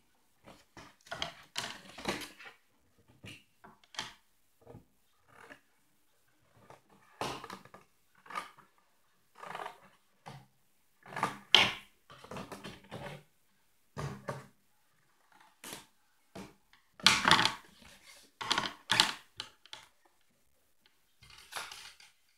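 Irregular rustles, taps and knocks of a cardboard box and craft materials being handled and set down on a wooden table. The loudest knocks come about half way through and again about three quarters through.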